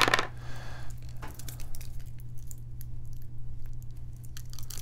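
Handling noise as a plastic clip is worked off a steel watch bracelet: a sharp plastic crackle at the start, then scattered small clicks and rustles, over a steady low hum.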